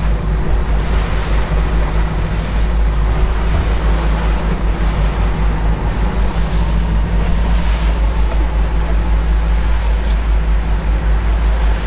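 Twin 150 hp outboard motors running steadily at trolling speed, a low hum under the rush of the boat's wake water and wind on the microphone.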